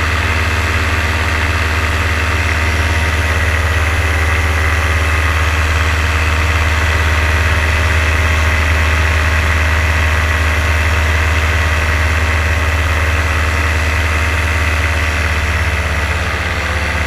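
A paramotor's two-stroke engine running steadily in flight, holding an even pitch throughout.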